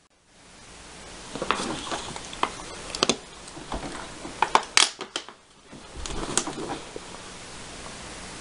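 Plastic water bottles crinkling and clicking irregularly as they are handled, with bedding rustling.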